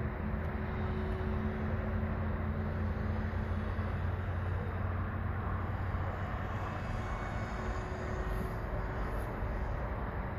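Steady outdoor wind noise on the microphone, with a low drone underneath that fades out about halfway through.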